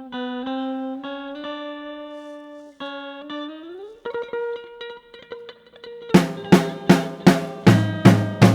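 Music: a guitar plays long held notes, with a note sliding upward a little past halfway. Then drums come in about six seconds in with steady hits, roughly two and a half a second.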